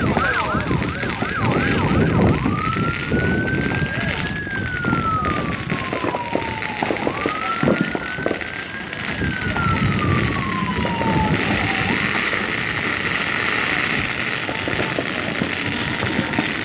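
Emergency vehicle siren: a fast yelp for about the first two seconds, then a slow wail that rises and falls twice. Background voices underneath, with a few sharp knocks about seven to eight seconds in.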